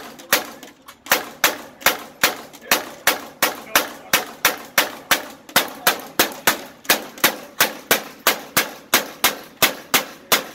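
Hand-cranked Gatling gun firing round after round in a steady rhythm of about three shots a second as the crank is turned, with a brief slowing about a second in.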